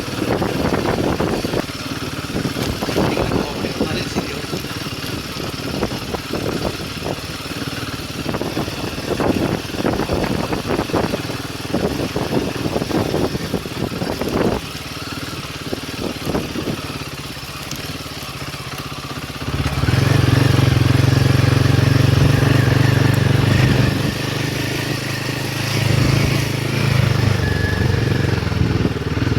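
Royal Enfield Himalayan 450's single-cylinder engine running on an off-road trail, with many irregular knocks and clatter over it. About two-thirds through, the engine suddenly gets louder and steadier, as under heavier throttle.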